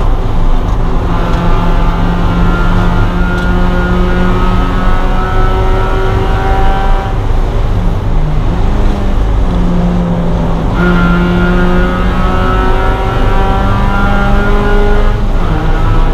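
Spec Miata race car's four-cylinder engine heard from inside the cockpit under racing load, the revs climbing steadily through a gear. The high engine note breaks off about seven seconds in, picks up again about eleven seconds in and climbs, then drops back sharply near the end.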